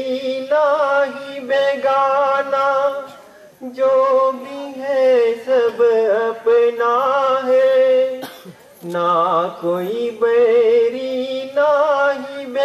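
A solo voice singing a devotional bhajan, drawing out long notes with a wavering vibrato in phrases broken by short pauses, the longest phrase about four seconds.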